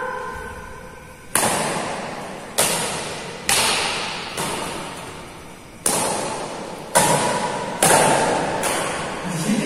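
Badminton rackets striking a shuttlecock in a rally, about eight sharp hits roughly a second apart, some louder and some fainter as the near and far players return it. Each hit rings on in a long echo off the hall's bare walls.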